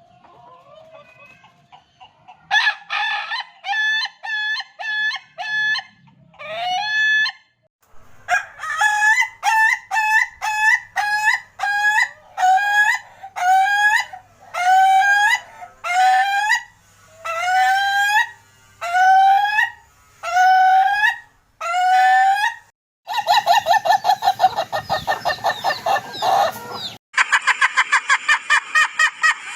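Ayam ketawa (Indonesian laughing chicken) roosters crowing in their long, laughing-style crow: a run of about fifteen evenly spaced rising-and-falling notes, then near the end two faster rattling runs of notes from different birds.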